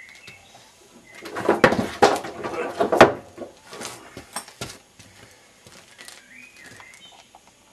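Knocking and clattering handling noises with the moped's engine off, loudest between about one and three seconds in, then a few scattered clicks and taps. A bird chirps faintly.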